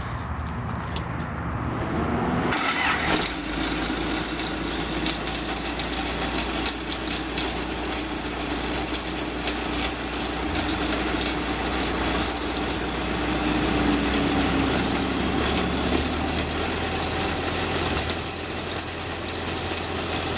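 The drill rig's 4-cylinder turbocharged Isuzu diesel engine is started cold: it catches about two and a half seconds in, then runs steadily.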